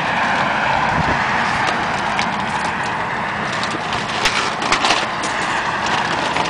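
Steady rushing background noise with a few short clicks or crackles, about a second in and again around four to five seconds in.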